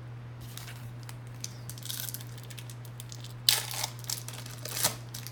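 Crinkling of a trading-card pack wrapper and cards being handled, in several short bursts, the sharpest about three and a half seconds in, over a steady low hum.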